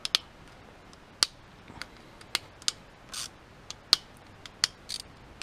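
Sparse, irregular sharp metallic clicks and clinks of a hand wrench on the 12 mm bolts of a Toyota 20R engine's oil pump as they are loosened, with a brief soft scrape about three seconds in.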